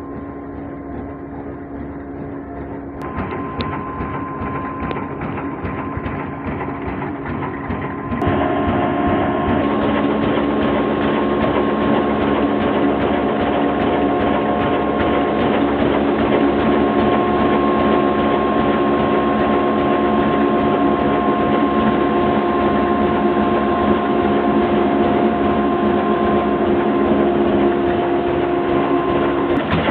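Mughal 22 HP horizontal diesel 'kala engine' running steadily at its slow working speed: a steady mechanical hum with a few held tones, growing louder in two steps about 3 and 8 seconds in.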